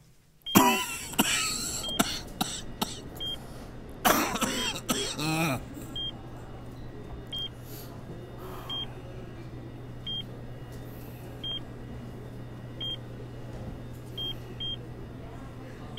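A bedside patient monitor beeping, one short high beep about every one and a half seconds, over a steady low hum. Early on a person breaks out loudly twice, in coughing, gasping fits.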